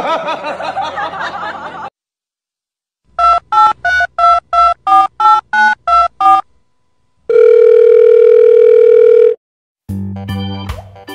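Touch-tone phone keypad beeps: about ten quick two-tone presses in a row, like a number being dialled, then a single steady tone lasting about two seconds. Before them comes a couple of seconds of a wavering, voice-like sound, and music starts near the end.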